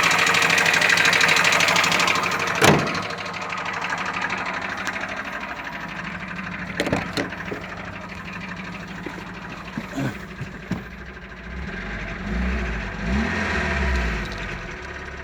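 Dacia Solenza engine idling with a persistent knock that the owner cannot explain and that does not go away once the engine is warm. A sharp bang comes about two and a half seconds in, after which the engine is heard more quietly, with a few separate knocks and a low rumble near the end.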